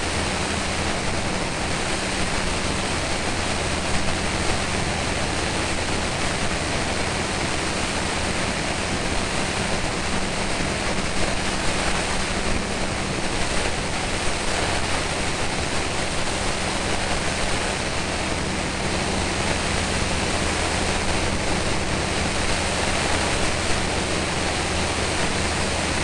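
Aircraft in flight, heard through a small onboard camera: a steady rush of wind noise with a low engine drone underneath.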